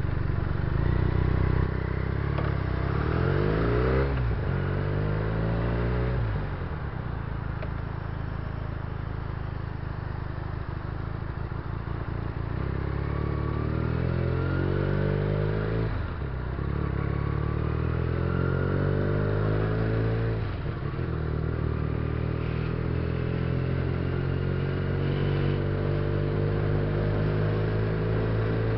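Benelli BN302 (TNT300) 300 cc parallel-twin motorcycle engine accelerating through the gears. Its pitch climbs and drops back at each upshift, about 4, 6, 16 and 20 seconds in.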